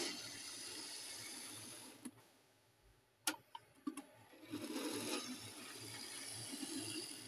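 HO-scale model electric locomotive running along the track: a steady whirr of its motor and wheels, in two runs of about two to three seconds each, with a few sharp clicks in the gap between them.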